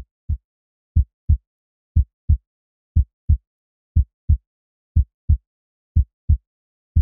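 Heartbeat sound effect: a low double thump about once a second, with silence between the beats.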